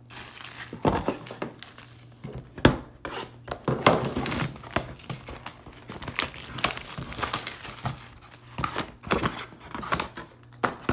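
Packaging of a 2021 Topps Finest baseball hobby box crinkling and tearing as the box is opened and unpacked by hand, irregular rustling with a few sharp knocks.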